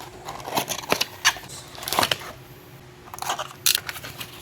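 Toy packaging being opened by hand: a string of sharp clicks with crinkles and rustles.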